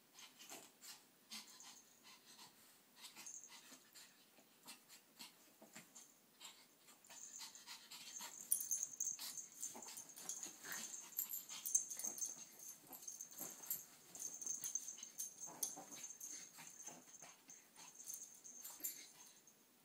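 Maltese and Sheltie puppies play-wrestling on a bed, with faint breathing and snuffling sounds and bedding rustling under them. The scuffling gets busier and louder about a third of the way in.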